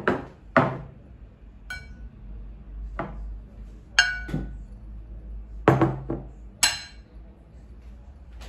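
Dishes and glassware clinking as they are set down and handled: about eight separate knocks, several of them ringing briefly like glass or china.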